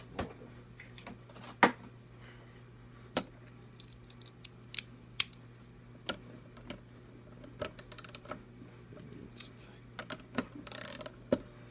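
Irregular sharp clicks and taps of a 1/2-inch socket and small metal parts being handled on a guitar control plate, with a quick run of clicks around eight seconds in and a short rustle near the end. A steady low hum runs underneath.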